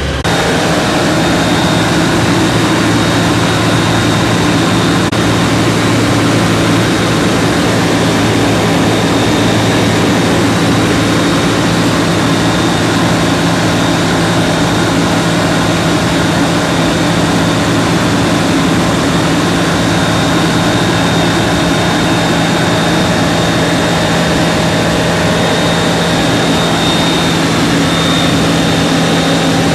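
Kitfox light aircraft's Rotax 912 flat-four engine and propeller running steadily at flight power, heard from inside the cockpit as an unbroken drone.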